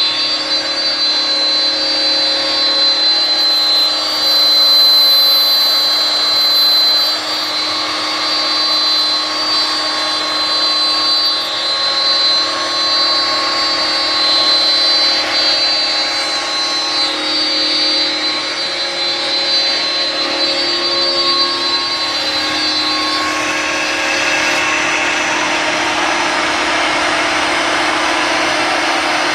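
CNC router spindle running with a steady high whine as it mills wood, over a broad rushing noise. About three-quarters of the way through, the whine drops away and a rougher, even noise takes over.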